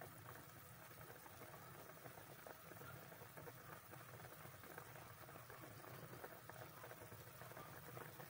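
Chicken and fried tofu simmering in broth in a wok, boiling to tenderise the chicken: faint, steady bubbling with many small pops.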